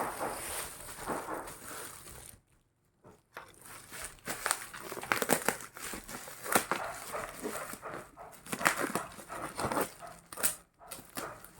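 Packaging being handled and unwrapped: irregular crinkling and rustling with scattered sharp clicks and taps, and a brief pause a couple of seconds in.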